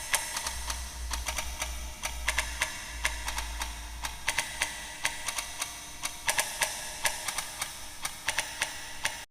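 Layered clock-ticking sound effect for stopped time: several ticking tracks overlap into a dense, uneven patter of sharp ticks over a low hum.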